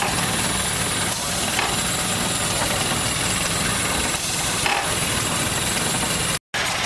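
Small enclosed steam engine on a steam-powered vehicle running steadily, with a continuous hiss of steam.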